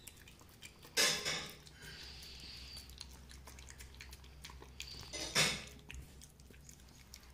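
A dog eating soft recovery food, with faint chewing and licking throughout and two louder bursts, about a second in and again after about five seconds.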